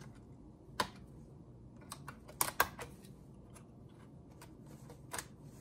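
Small sharp clicks and taps of a screwdriver working at the RAM slot of a 2006 MacBook Pro's aluminum case, as the second memory stick is freed: one click about a second in, a quick cluster of louder clicks around the middle, and one more near the end.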